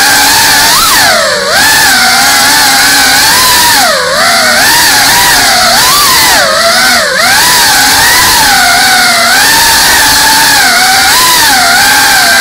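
GEPRC Cinelog 35 cinewhoop's brushless motors and ducted 3.5-inch propellers whining loudly, heard from on board. The pitch rises and falls continually with the throttle, with brief dips about a second and a half in, around four seconds in and around seven seconds in.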